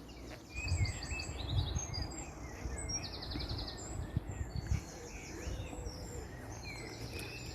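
Several songbirds singing and chirping together in woodland, including quick trills and rapid runs of repeated notes, over a low rumbling noise.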